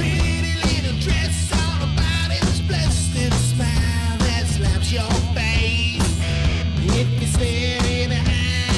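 Rock background music with a driving beat, bass line and guitar.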